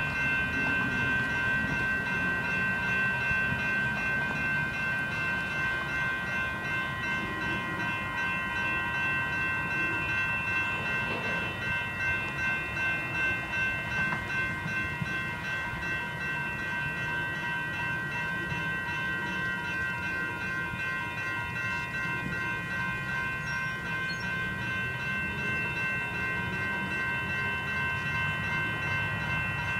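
Railroad grade-crossing warning bells ringing steadily over the low rumble of a slow-moving Union Pacific freight train, with a rhythmic swell in the rumble about ten seconds in.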